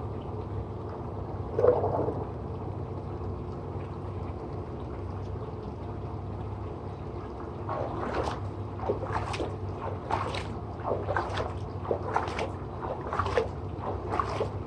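Water splashing in irregular bursts over brickwork, rinsing off and diluting spilled hydrochloric acid, over a steady low hum.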